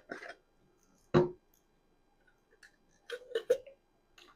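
Clicks and knocks of a plastic portable dog water bottle being handled. There is one solid knock about a second in, then a quick run of clicks near the three-second mark.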